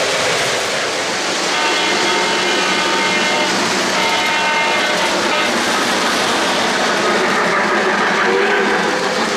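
O-gauge model trains rolling on three-rail track with a steady rumble and wheel clatter. The diesel's onboard sound system blows its horn twice, each blast about two seconds long, starting about a second and a half in and again about four seconds in. Near the end a lower whistle tone begins.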